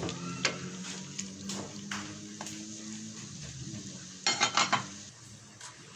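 Wooden spoon stirring chunks of pork and jackfruit in a metal pot, with scattered scrapes and knocks against the pot. A quick run of louder clattering knocks comes a little over four seconds in.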